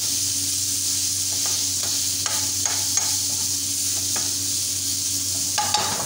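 Chicken strips sizzling in oil in a frying pan, nearly cooked. A spatula scrapes and knocks against the pan now and then as they are stirred, with a louder few strokes near the end. A low steady hum runs underneath.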